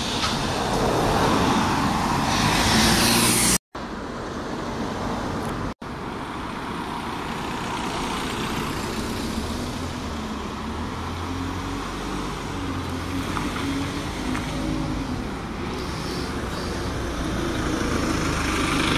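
Single-deck buses running past on a road, their engines rumbling over general traffic noise, loudest as a bus passes close in the first few seconds and again near the end. The sound cuts out abruptly twice, a few seconds in and again shortly after.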